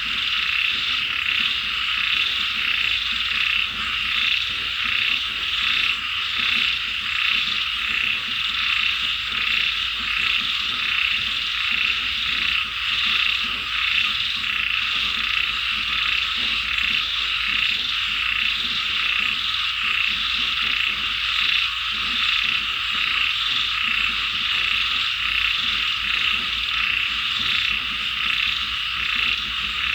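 A dense chorus of many frogs calling at once, a steady mass of rapid overlapping croaks.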